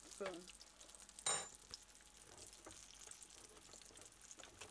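Apple fritter batter frying in hot oil in a pan: a steady, fine crackling sizzle. About a second in comes a single sharp metallic clink.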